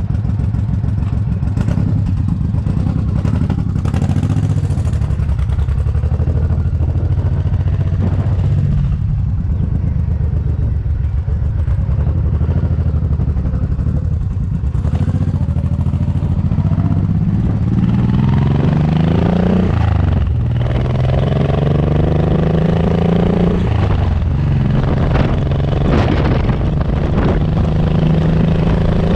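Cruiser motorcycle engine idling steadily, then pulling away: the engine note rises twice through the gears with a sudden drop at each shift, about two-thirds and four-fifths of the way through, before settling into steady running at road speed.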